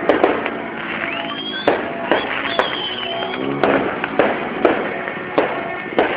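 Fireworks going off: a dozen or so sharp bangs at irregular intervals, with a high whistle rising about a second in.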